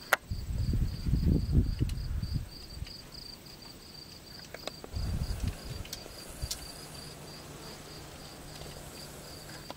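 Insects chirping steadily in a high, even pulse of about four or five chirps a second. Two bursts of low rumble, the loudest sounds, come in near the start and about halfway through.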